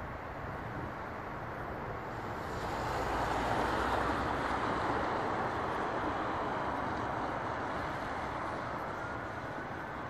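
Road traffic passing close by over a steady city hum: one vehicle swells past about three seconds in, then slowly fades.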